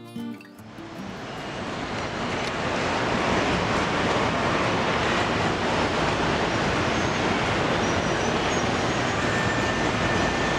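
Model trains running on a large layout: a steady rolling rumble and hiss that fades in over the first couple of seconds, with a faint thin high tone near the end.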